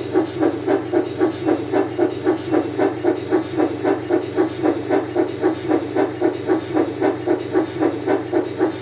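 Steam locomotive chuffing at a steady running pace, about four chuffs a second, over a low steady hum.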